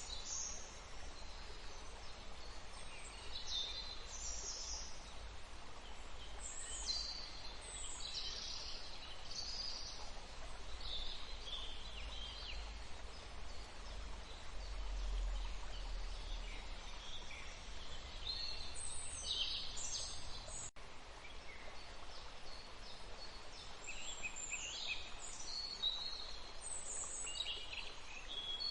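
Wild birds singing and calling, many short chirps and trills following one another, over a steady rush of flowing stream water.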